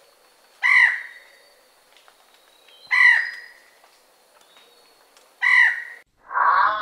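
A large bird's loud, harsh calls, three of them about two and a half seconds apart, each fading quickly; music starts near the end.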